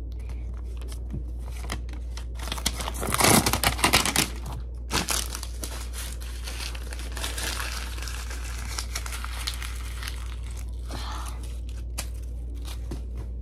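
Paper being crumpled and handled, crinkling loudest from about three to five seconds in and then lighter rustling. A steady low hum runs underneath.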